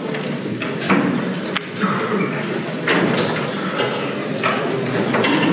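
Audience murmuring and shifting about in a large hall, with scattered knocks and bumps.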